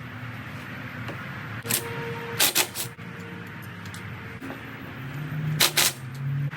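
Sharp clicks and knocks from hand work on metal light-bar mounting brackets: a cluster of three about two and a half seconds in and a pair near the end, over a steady background hum.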